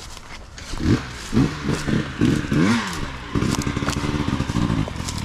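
A dirt bike's engine revving up and down several times as it rides through the woods, then holding a steady note about three and a half seconds in. A few crunches of dry leaf litter come at the start.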